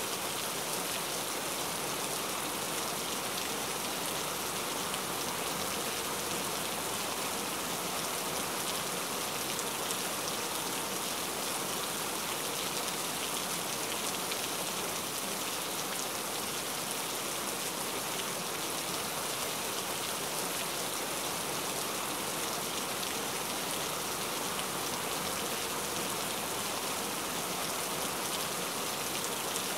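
Steady rain falling, an even continuous wash with no breaks or changes.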